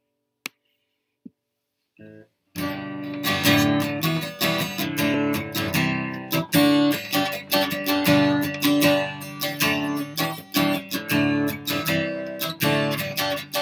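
Acoustic guitar strummed in chords, beginning about two and a half seconds in after near silence with a faint click.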